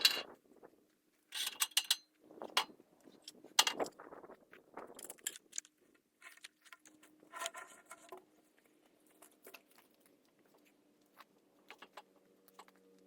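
Scattered clicks, knocks and light metallic rattles at irregular intervals, as of metal gear being handled, the loudest knock right at the start.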